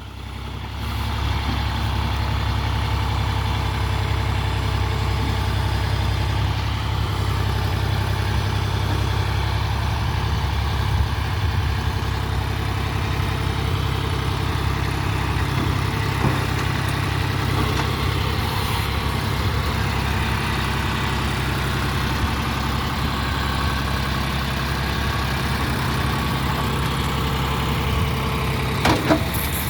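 John Deere 5310 tractor's three-cylinder diesel engine running steadily while it drives a Bull backhoe loader's hydraulics, with a short sharp click near the end.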